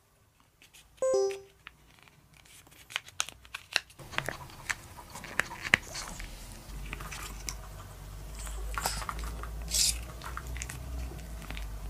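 Pomeranian licking paste from a squeeze-tube dog treat: wet smacking and lapping clicks, sparse at first and getting busier about four seconds in. A short pitched tone sounds about a second in.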